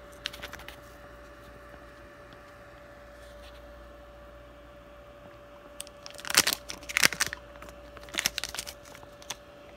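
A plastic bottle of Slime tire sealant being squeezed to force sealant through its hose into a scooter tire's valve. It crinkles and crackles in two bouts in the second half, with a few light clicks near the start and a faint steady hum underneath.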